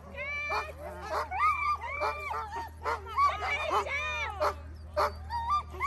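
A team of harnessed husky sled dogs barking, yipping and whining together, with many short, overlapping calls rising and falling in pitch.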